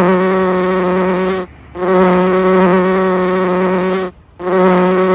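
Honeybee buzzing: a steady, low-pitched drone that breaks off twice for a moment, about a second and a half in and again about four seconds in.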